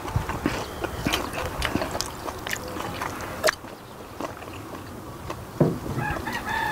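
Close-up eating sounds: chopsticks clicking on a ceramic plate and bowls, with chewing and slurping of spicy raw-fish noodles, heard as many small scattered clicks and ticks.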